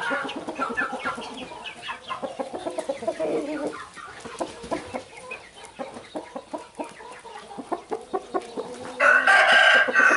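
A small flock of chickens, young birds and hens together, clucking and calling as they move about and peck. About nine seconds in, one bird gives a louder call lasting about a second.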